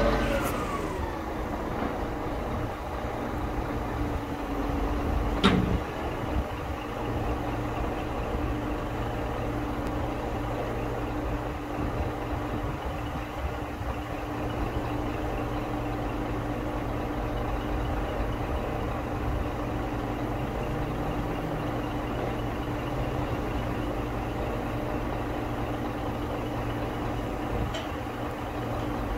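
Scania P 420 truck's diesel engine running steadily to drive the Hiab 16TM loader crane's hydraulics as the boom telescopes out, with a steady whine over the engine rumble. A sharp clank comes about five seconds in.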